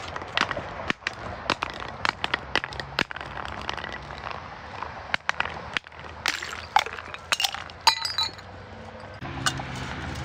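Glass bottles breaking, a dense run of sharp, irregular cracks and clinks of glass shards, with brighter ringing clinks about six to eight seconds in. A low steady hum joins near the end.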